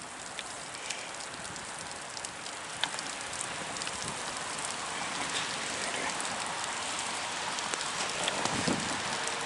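Rain mixed with wet snow falling: a steady hiss with scattered drops tapping close by, slowly getting louder.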